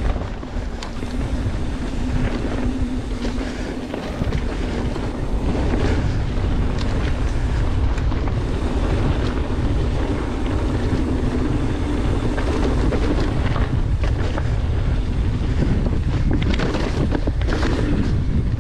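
Wind rushing over a GoPro's microphone and tyres rolling on a dirt trail as a mountain bike is ridden at speed, with a steady hum that fades near the end and a few sharp rattles.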